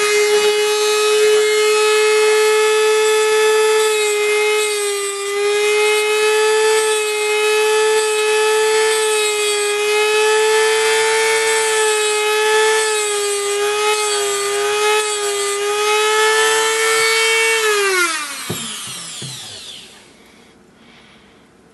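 Eastwood tungsten grinder's motor running with a steady high whine as its diamond wheel grinds a 1/16 tungsten electrode to a 10-degree point, the pitch dipping slightly now and then as the tungsten is pressed in and turned. About 18 seconds in the motor shuts off and the whine falls in pitch and fades as it spins down.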